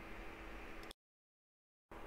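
Faint room tone with a thin steady hum that cuts to dead silence for about a second in the middle, an edit gap in the soundtrack, then resumes.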